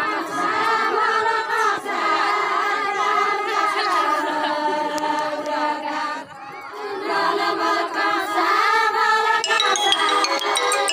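A group of women singing a deuda folk song together, many voices in unison with no instruments, breaking off briefly about six seconds in before the singing resumes.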